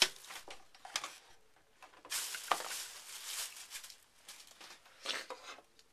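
Handling noises on and around a desk: a sharp click at the start, a few more clicks, then a burst of rustling about two seconds in with a sharp tick in it, and a shorter rustle near the end.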